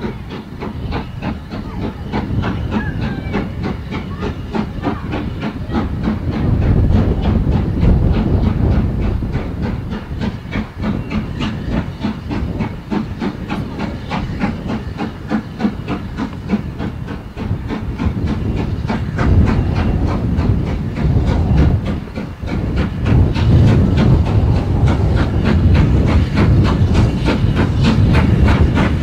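SR S15 class 4-6-0 steam locomotive No. 506 working toward the listener: a fast, regular chuff of exhaust beats over a steady hiss of steam, growing louder as it draws close.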